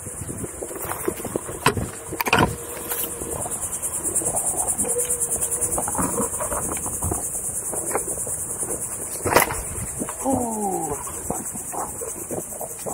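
A steady, high-pitched insect chorus, finely pulsing, with a few sharp knocks about two seconds in and again about nine seconds in.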